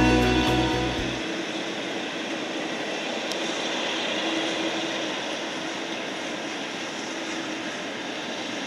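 Background music ending about a second in, then the steady, distant sound of an Airbus A330's jet engines at takeoff thrust during its takeoff roll, mixed with the hiss of heavy rain.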